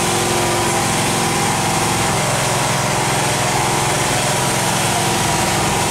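Small engine of a mini speedboat running steadily at an even pitch.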